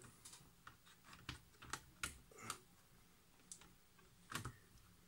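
Plastic bottom cover of an Acer Aspire ES1-132 netbook clicking and knocking against the chassis as it is fitted on by hand: about eight short, sharp clicks at irregular intervals.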